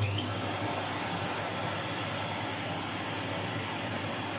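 Kelner 1400 cylinder vacuum cleaner's motor running steadily, a rush of air over a low hum. The owner suspects the motor is partially burnt out; he has noticed a tick from the brushes on the commutator and an ozone smell.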